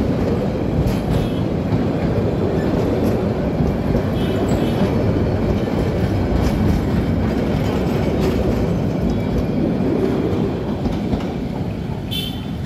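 Bangladesh Railway's Vawal Express passenger coaches rolling past close by: a steady heavy rumble of wheels on track, with a clickety-clack over the rail joints.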